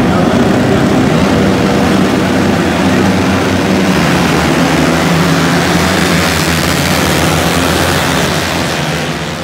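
A pack of single-cylinder flat-track racing motorcycles revving together on the start line, then launching and accelerating away as a group about halfway through. Their engines get a little quieter near the end as the field moves off.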